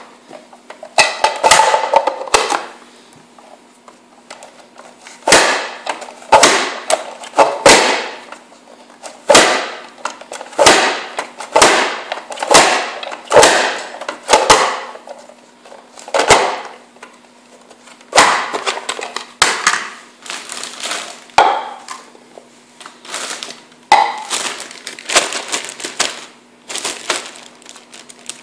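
Plastic push-down vegetable chopper worked over and over, about one sharp crunching clack a second, as carrots are forced through its blade grid into batons; a faint steady hum runs underneath.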